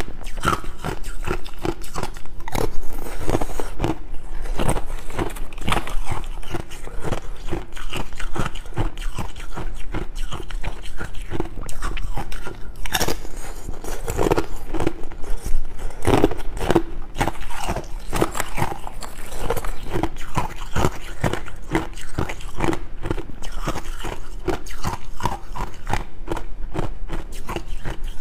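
Ice being bitten and chewed close to a microphone: a dense, continuous run of sharp cracks and crunches as thin discs of ice break between the teeth.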